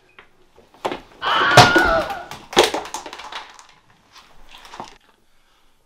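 A sharp thump, then a loud crashing clatter lasting about a second, another knock and softer thuds and rustling: a man dropping onto the floor and scuffling about.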